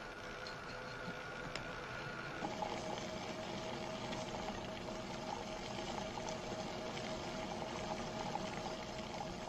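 Water bubbling in a heated tank over a steady electrical hum. The hum drops to a lower pitch about two and a half seconds in.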